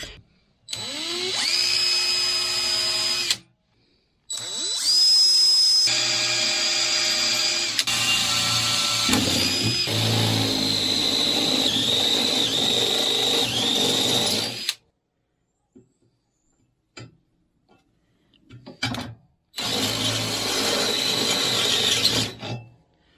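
Electric drill boring a hole into the mower's body, run in three spells: a short one, a long one of about ten seconds, and a short one near the end. Its motor whine rises in pitch as it spins up each time, with a few light clicks in the pause between.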